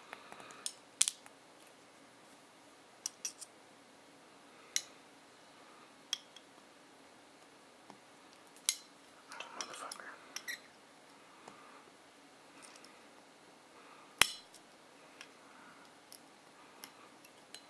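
Scattered sharp clicks and taps of small metal parts and a steel punch at the rear of a Glock 17 pistol slide as the firing pin assembly and slide cover plate are worked into place. There are about a dozen separate clicks, the loudest about fourteen seconds in, with a little handling rustle in between.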